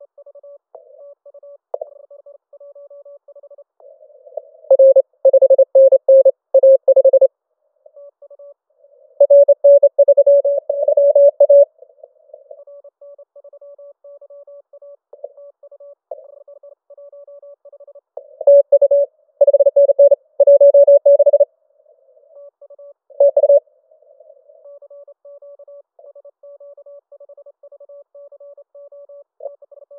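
Morse code (CW) tones from a Yaesu FT-891 transceiver during a contest: a single-pitched tone, somewhat above 500 Hz, keyed on and off. Faint keying of weaker signals runs throughout, broken by several much louder spells of fast keying.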